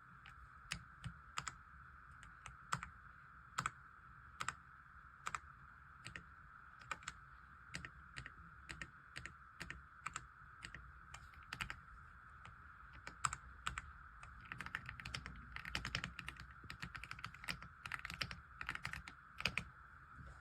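Keystrokes on an AULA F75 mechanical keyboard with pre-lubed Reaper switches: single presses spaced out at first, then quicker runs of typing in the last third, over a faint steady tone.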